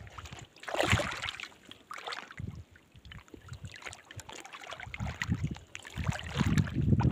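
Shallow seawater lapping and trickling irregularly among rocks, with gusts of wind rumbling on the microphone in the second half.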